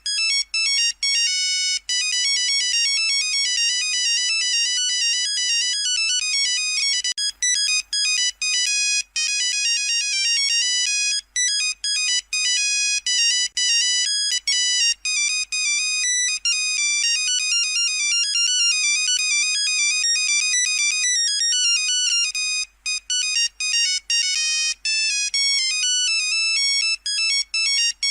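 Nokia 3310 monophonic ringtone playing: a fast, buzzy beeping melody of short notes, repeating with only brief pauses.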